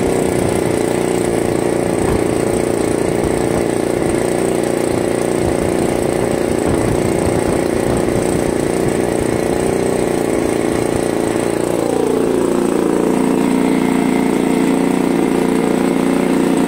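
Gasoline engine of a large RC model aeroplane running steadily on the ground at part throttle, then throttled back about twelve seconds in, its pitch sliding down to a lower, steady idle. It is a new engine being run in.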